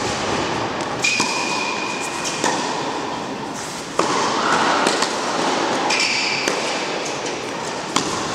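Tennis ball struck by racket strings and bouncing on an indoor court: several sharp hits heard over a steady hall background.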